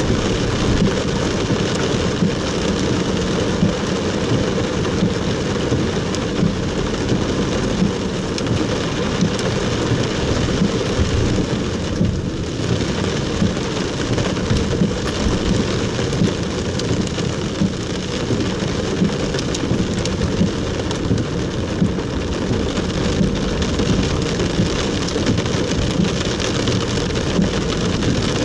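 Heavy rain falling steadily on a car's roof and windscreen, heard from inside the moving car.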